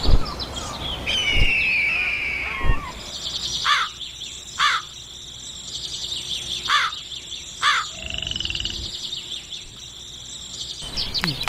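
Bird calls: a long falling cry about a second in, then four short falling calls over a steady high-pitched buzz.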